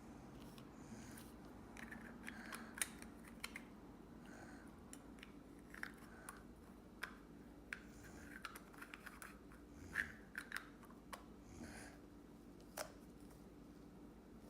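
Small plastic pieces of a toy puzzle figure being handled and clicked together, with scattered light clicks and rustles as it is reshaped from a figure into a ball.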